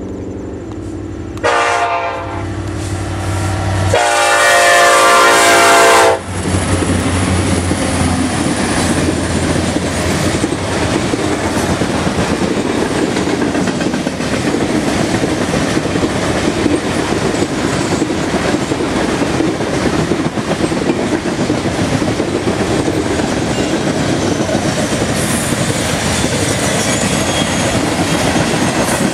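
Air horn of an EMD SD70ACe diesel locomotive sounding a short blast and then a longer, louder one. Then the locomotives pass, and a long string of coal hopper cars rolls by with a steady loud rumble and clickety-clack of wheels over the rail joints.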